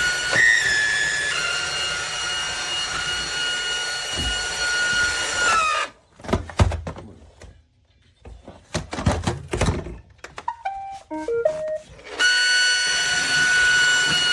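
iRobot Roomba robot vacuum running with a steady high motor whine. About six seconds in the whine stops and a few knocks and thuds follow. Near the end a short series of electronic beeps steps up and down, and about twelve seconds in the vacuum's whine starts again.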